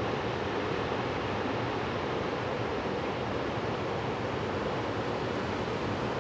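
Waterfall on the Bow River and the fast river below it: a steady, even rush of white water that does not change.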